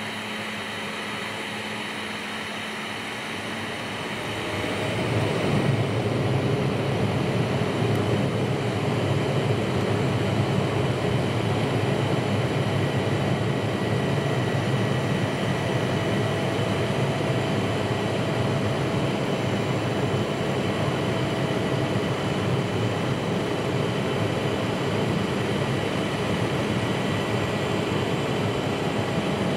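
Cabin noise of an Embraer 175 taxiing: the steady rush of its GE CF34 turbofan engines with a faint whine. It grows louder about four to five seconds in, then holds steady.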